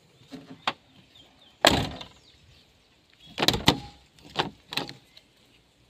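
Car door of a 1997 Isuzu Panther: a loud shut with a thud about a second and a half in, then sharp latch clicks and knocks as the outside door handle is pulled and the door opened again.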